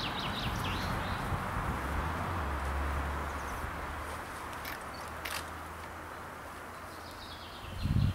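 Small birds singing in quick high trills at the start and again near the end, over a steady outdoor hiss with a low rumble. A few sharp clicks come midway, and a few low thumps come just before the end.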